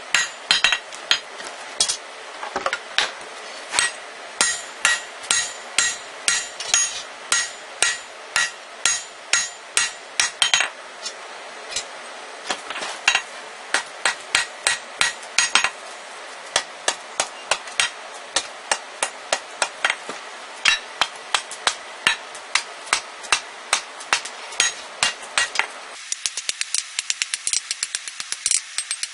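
Hand hammer striking hot rebar on an anvil in a steady rhythm of about two to three blows a second, flattening the end of the bar. Near the end the blows come faster and lighter.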